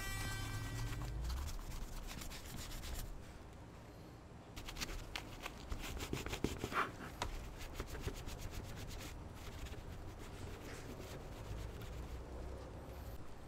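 Abrasive pad rubbed back and forth over the painted metal body of a diecast 1956 Ford Thunderbird model car, in many quick, short sanding strokes, with softer rubbing near the end.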